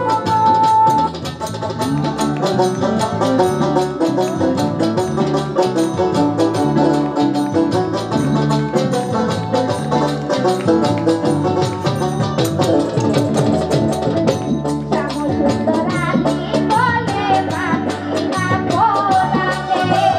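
Live Bengali baul folk music: a steady instrumental passage on keyboard with hand drums and jingling percussion keeping an even beat. A woman's singing voice comes in during the last few seconds.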